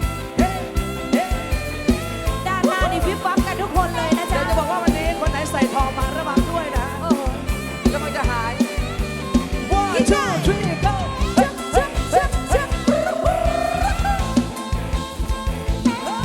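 Live rot hae band music, loud, with a fast, steady drum beat under a lead melody of sliding notes.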